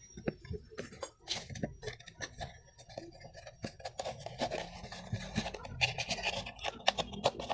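Handling noise of a fabric belt being pushed and pulled through slits in an empty plastic oil bottle: scattered light rubbing and scraping with irregular small clicks of the plastic.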